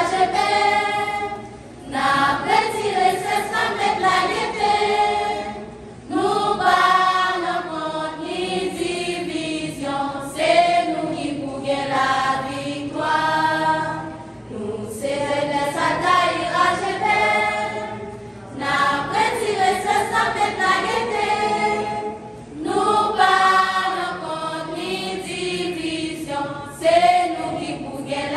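Mixed choir of young men and women singing a hymn together, in sung phrases a few seconds long with short breaks between them.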